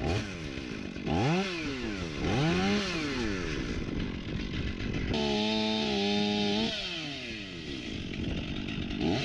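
Two-stroke chainsaw revved up and down in three quick blips, then held at a steady high speed for about a second and a half. It drops back and comes up to a steady high speed again near the end.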